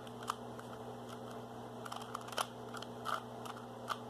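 Rubik's Cube layers being turned by hand, giving a few scattered plastic clicks over a steady low hum.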